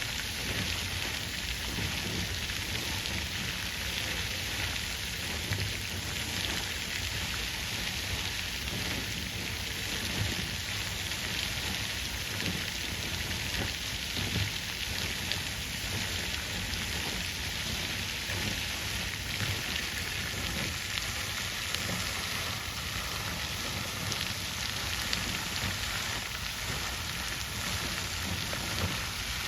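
Water fountain splashing steadily, an even rush of falling water with no breaks.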